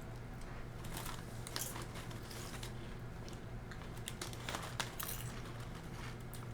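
Crinkling of a snack bag and crunching of corn tortilla chips being bitten and chewed, a scatter of short crackles and crunches over a steady low hum.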